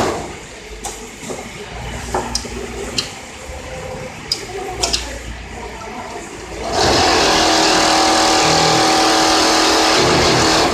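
Richpeace automatic template sewing machine with auto loader at work: about seven seconds of quieter running with scattered sharp clicks and clacks, then a loud steady rushing run starts up again and holds.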